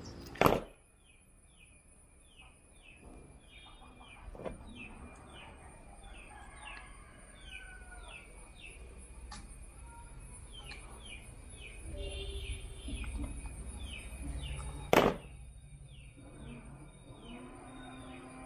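A bird calls with a long run of short, falling chirps, a couple each second, over faint handling of pliers and wire. Two sharp clicks, one just after the start and one about fifteen seconds in, are the loudest sounds.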